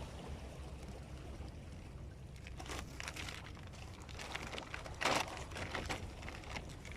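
Water splashing and lapping in short, irregular bursts over a steady low wind rumble, the loudest splash about five seconds in.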